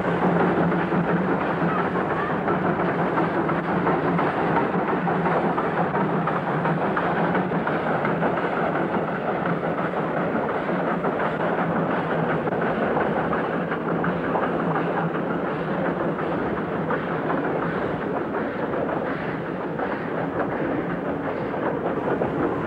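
Steam train running: a dense, steady rumble and roar with no distinct beats.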